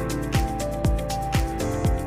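Background electronic music with a steady beat, about two beats a second, and held synth notes.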